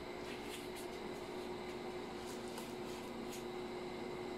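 Faint, irregular clicks of laptop keys being pressed and patted by a baby's hands, over a steady background hum.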